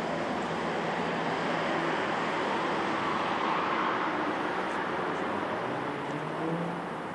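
City road traffic: a steady rushing noise of passing vehicles that swells about halfway through as one goes by, then eases near the end.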